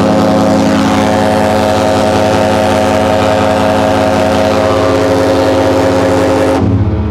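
Cruise ship's horn sounding one long, loud, steady blast that stops abruptly about six and a half seconds in.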